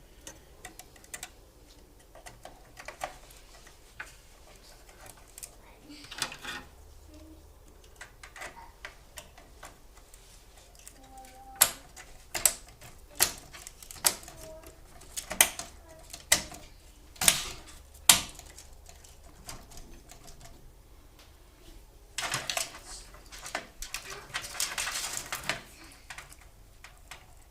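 RAM modules being pressed into a motherboard's DIMM slots: a run of about eight sharp plastic clicks midway as the slot latches snap shut, among lighter handling clicks, with a few seconds of rustling near the end.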